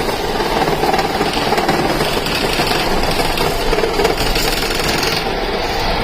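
Cookware-factory metalworking machinery running with a steady, dense mechanical clatter; the higher part of the noise drops away about five seconds in.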